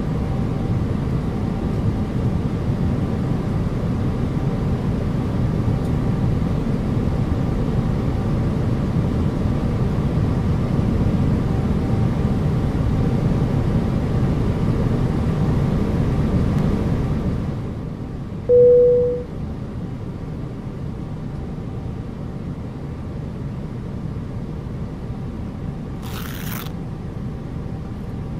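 Steady low rumble of an airliner cabin in flight, which turns duller a little past the halfway point. Shortly after that, a single short, loud beep sounds.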